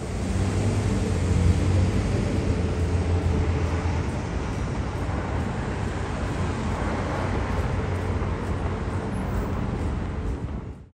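Steady outdoor roar with a low hum, strongest in the first few seconds, cutting off abruptly near the end.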